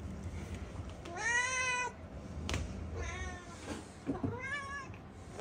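Domestic cat meowing three times. The first meow, about a second in, is the loudest and longest, with two shorter ones after it. There is a short click between them.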